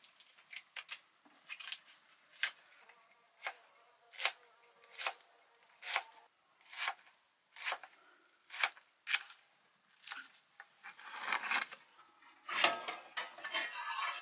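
Cabbage being sliced with a cleaver on a wooden chopping block, one crisp crunching cut about every second. Near the end a denser, louder clatter takes over.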